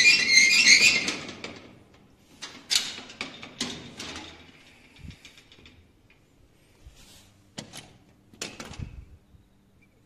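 Metal-framed glass door being handled and opened: a loud scraping rattle in the first second or so, then scattered clicks and knocks from its frame and latch.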